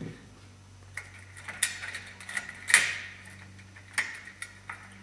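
Scattered small clicks and crackles of hands working wire splices with vinyl electrical tape and a twist-on wire nut, with one louder short rasp a little before three seconds in. A faint steady low hum underneath.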